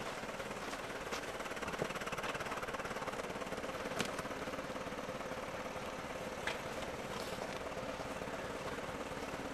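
Forklift engine running steadily while it carries a granite slab, with a few light knocks.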